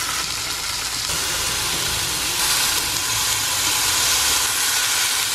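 Chicken breast frying in oil in a pan: a steady sizzling hiss.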